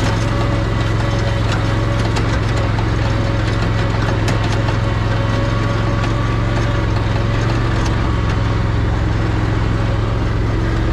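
Zero-turn mower engine running steadily at constant speed, an even low hum.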